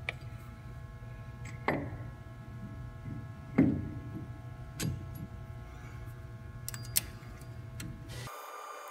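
An aluminum disc being handled against a steel lathe chuck: a few separate metal knocks and clinks, the loudest about three and a half seconds in with a short ringing tail, and a sharp click near the end as a hex key goes into a set screw. A steady low hum runs underneath and cuts off abruptly near the end.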